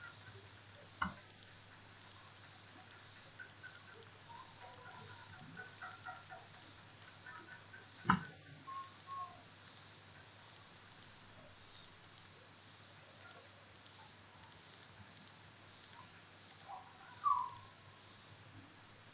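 Computer mouse clicks over quiet room tone with a faint steady hum, the sharpest clicks about a second in and about eight seconds in. A short, brighter sound follows near the end.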